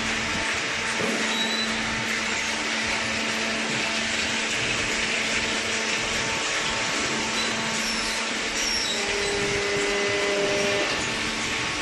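Horizontal hydraulic baling press running, a steady machine noise with a steady hum from its motor and hydraulic pump.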